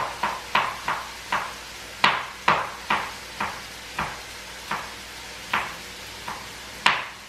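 Kitchen knife chopping a bell pepper on a wooden cutting board: about fourteen sharp knocks at an uneven pace of roughly two a second.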